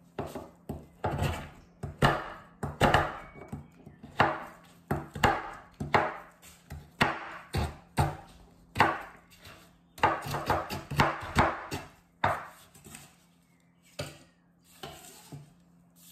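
Chef's knife chopping chunks of brown sugar on a wooden cutting board: a run of irregular sharp chops, one or two a second, with a quicker flurry about ten seconds in that thins out near the end.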